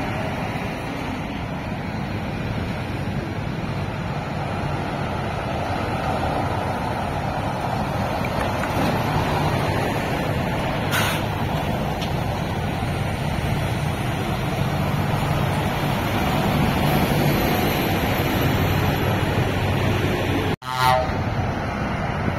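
Diesel lorry engines running as articulated lorries drive slowly round a roundabout close by, with a brief hiss about halfway through. Near the end the sound cuts out for an instant and a short horn toot follows.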